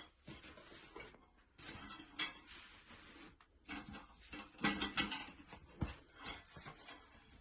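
Hard objects being handled and shifted about, with irregular clinks and rustles and a sharp knock a little before six seconds in.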